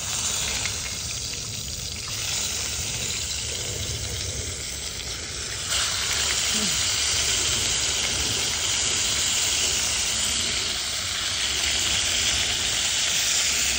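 Pieces of venison frying in a skillet on a portable butane camp stove: a steady sizzle that grows louder about six seconds in.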